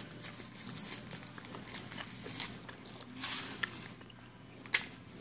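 Foil wrapper crinkling and tearing as a chocolate surprise egg is unwrapped by hand, in irregular short crackles. There is a single sharp click just before the end.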